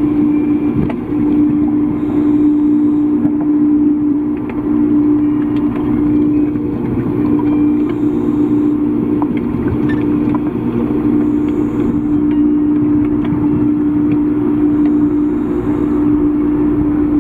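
Steady mechanical hum of an aquarium tank's water-circulation machinery, heard underwater, with one strong low steady tone.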